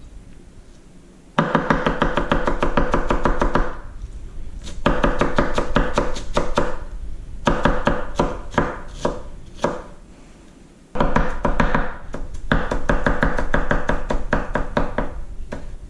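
Kitchen knife chopping an onion on a cutting board in rapid strokes, several a second. The strokes come in four quick runs with short pauses between them.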